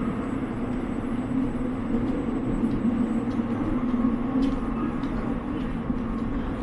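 Steady low rumble of vehicles, with a constant hum throughout.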